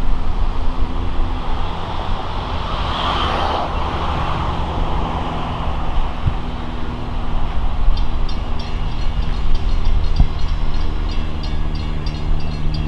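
LIRR DM30AC dual-mode locomotive approaching under diesel power, its engine a steady low drone. From about eight seconds in, a rapid, regular high-pitched ringing joins it.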